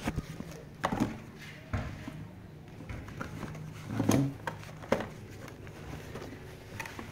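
Cardboard box and packaging being handled during unpacking: scattered knocks, clicks and rustles as items are moved about, the loudest about four seconds in.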